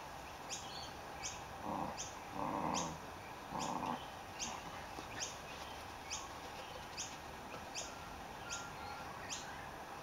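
A puppy growling in three short bursts during play. Throughout, short high chirps repeat about every three-quarters of a second.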